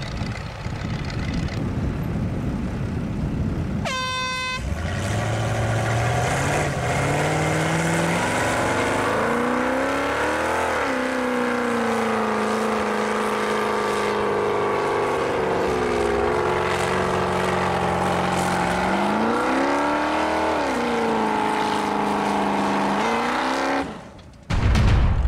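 A short horn toot about four seconds in, then off-road vehicle engines revving hard under load, their pitch rising and falling as a buggy pulls against a wheel loader with its wheels spinning in the dirt.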